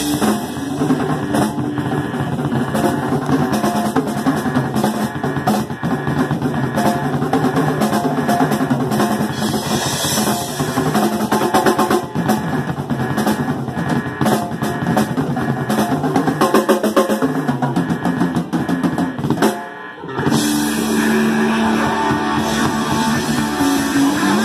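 Live rock band playing through amplifiers: drum kit to the fore with electric guitars and bass guitar. Late on the music drops out for a moment, then the guitars come back in.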